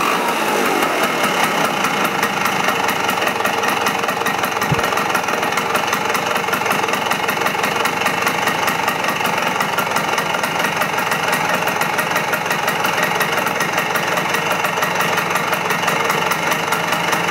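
Vespa PX200's single-cylinder two-stroke engine running: its revs fall away in the first second, then it idles steadily. There is one brief low thump about five seconds in.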